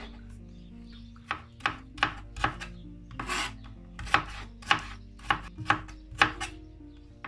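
Kitchen knife chopping bell peppers on a cutting board. About a dozen sharp chops come at an uneven pace of roughly two a second, starting about a second in, over soft background music.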